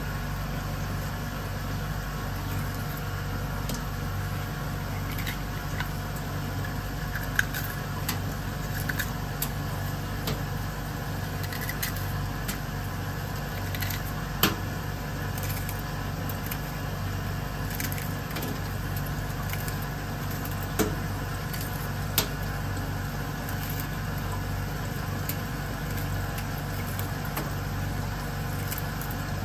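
Kitchen scissors cutting open a sea urchin's shell, a handful of sharp crunchy snips spaced several seconds apart, over a steady low machine hum.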